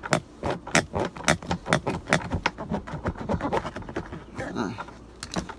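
Knife cutting through car floor carpet in quick short strokes: a run of sharp scratchy clicks, several a second, thinning out near the end.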